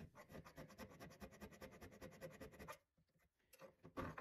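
Hand file rasping on the brass of a small plane body as the iron seat is cleaned up, a faint, rapid, even scratching. It stops about two-thirds of the way through, and a couple of faint scrapes follow near the end.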